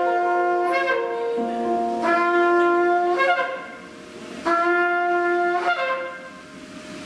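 Slow instrumental music: a wind instrument plays long held notes in a slow melody, in two phrases with a short dip between them.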